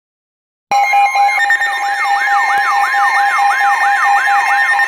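Emergency alert signal cutting in abruptly after a moment of silence: a loud steady two-tone alert with a rapid rising-and-falling siren whoop repeating about two to three times a second over it, the attention signal ahead of a broadcast weather warning.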